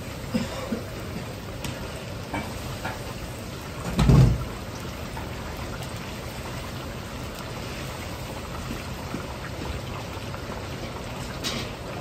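Starch-coated potato chunks deep-frying in a wok of hot oil: a steady, hissing, crackling bubble. A few light clicks, and one loud dull thump about four seconds in.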